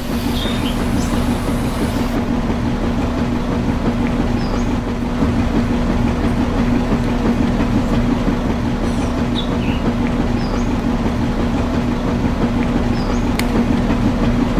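Small electric motor of a miniature model concrete mixer running steadily, a constant even hum.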